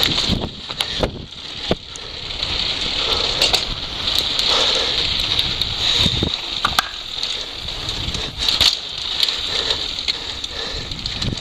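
Downhill mountain bike rattling and clattering over cobblestones and stone paving at speed, with sharp knocks from the bike's impacts and a steady rush of wind on the microphone.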